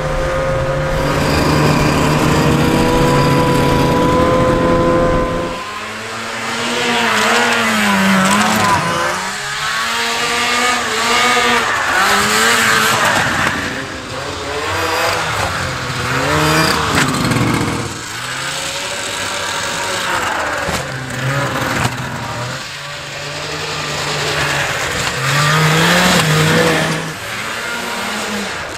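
Vintage two-stroke snowmobile engines running at speed: a steady, even engine note for about five seconds, then, after a sudden change, an engine revving up and easing off again and again, its pitch rising and falling every second or two.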